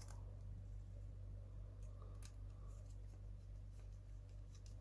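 Faint clicks and light scrapes of small plastic parts and screws being handled and fitted to a Mini 4WD car's plastic chassis, with one sharper tick a little past two seconds in and a few more near the end, over a steady low hum.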